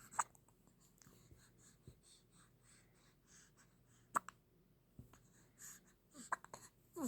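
A baby hiccuping: short, sharp hics spread a few seconds apart, with a quick cluster of them near the end.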